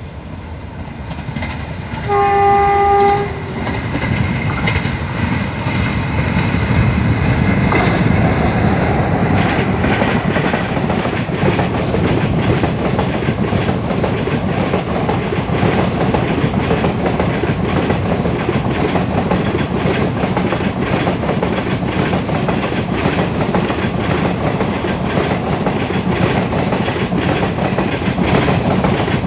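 A WAG5E electric locomotive's horn sounds once, a chord of a few tones about a second long, about two seconds in. Then the locomotive and its passenger coaches run past, the rumble building and giving way to the steady rhythmic clatter of coach wheels on the rails as the train slows for a station halt.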